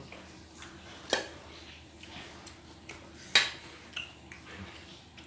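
Cutlery clinking against a dish of fried instant noodles while eating: two sharp clinks, about a second in and the louder one past three seconds, with a few fainter taps after.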